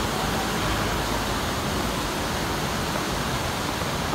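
Steady rushing of river water churning white at the foot of a concrete spillway.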